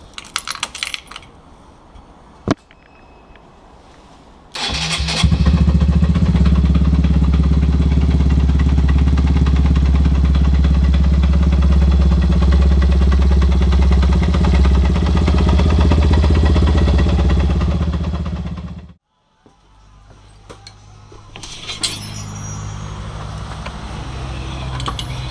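Ignition keys clicking, then a Honda CBF motorcycle's air-cooled engine starts about four seconds in and runs steadily, loud and close, until it cuts off abruptly; the rider says the engine is badly faulty.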